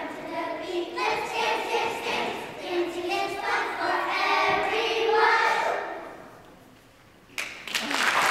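Children's choir singing, dying away about six seconds in. After a moment of quiet, the audience breaks into applause near the end.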